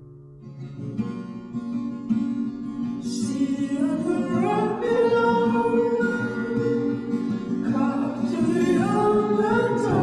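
Background song: a voice singing over acoustic guitar, starting softly, with the singing coming in about three seconds in.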